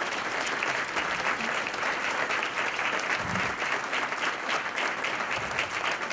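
Audience applauding: a roomful of seated people clapping together, a dense even patter of many hands.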